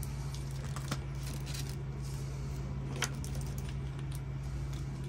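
Light handling noise of a rubber stethoscope tube and a clear plastic ruler being moved about on a table: faint rustles and small clicks, with a sharper click about three seconds in, over a steady low hum.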